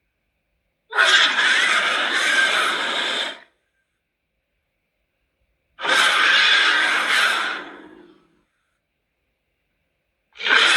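Velozolt creature vocal sound effects: two separate hoarse, breathy calls of about two and a half seconds each, with silence between them, and a third call starting near the end.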